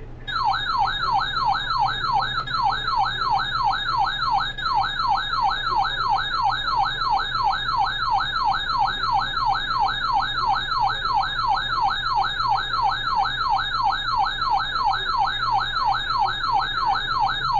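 Siren-style Emergency Alert System attention tone played over the radio: a fast electronic warble sweeping up and down about three times a second, with a low steady hum under it. It cuts off abruptly near the end, ahead of the spoken alert.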